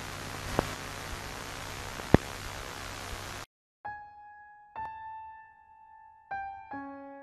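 A steady hiss with two sharp clicks cuts off about three and a half seconds in. After a short gap, slow piano notes sound one at a time, ending on a lower chord.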